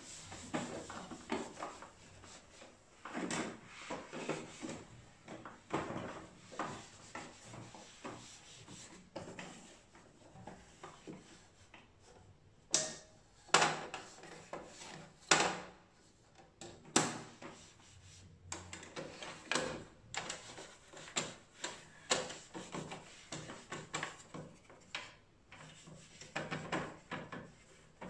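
Hands handling and wiping the plastic casing of a new Epson EcoTank L3156 inkjet printer with a tissue: irregular rubbing and rustling, with a few sharp plastic clicks and knocks about halfway through.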